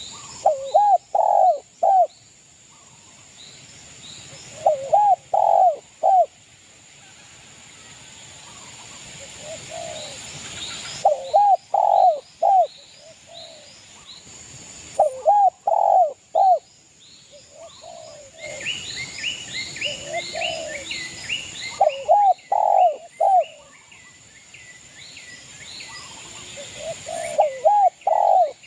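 Spotted dove (derkuku) cooing in full voice: about six phrases of three or four short coo notes, each phrase a few seconds apart. Small birds chirp faintly and rapidly in between, loudest around the middle.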